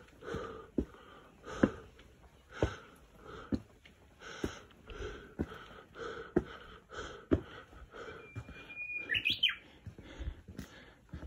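Heavy, rhythmic panting of a hiker labouring under a 20 kg backpack, with footsteps knocking on stone about once a second. A short bird whistle that jumps up in pitch comes about nine seconds in.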